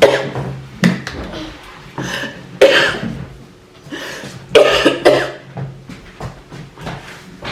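A person coughing hard in repeated loud bouts, with fainter coughs near the end: a feigned coughing fit while eating.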